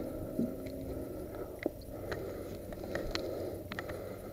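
A few light, irregular clicks and knocks over a steady low rumble.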